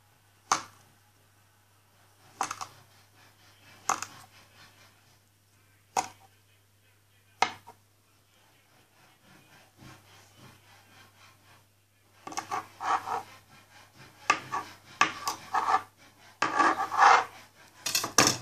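A knife scraping and clattering through kinetic sand on a hard surface: single sharp strokes about every one and a half seconds, then a quicker run of rubbing and scraping over the last six seconds.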